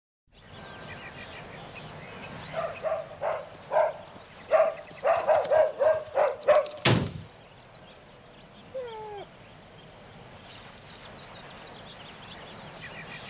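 A dog barking in a quickening string of about a dozen barks. The barks end with a sudden hard thud, followed by a short, pitch-gliding whimper.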